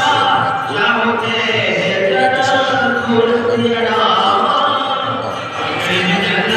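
A voice singing with music accompanying it, long held notes that bend in pitch.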